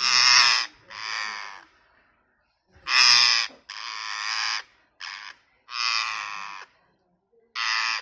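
Rose-ringed parakeet giving a series of loud, harsh screeching calls, about seven in all. Each call lasts under a second and there are short silent gaps between them.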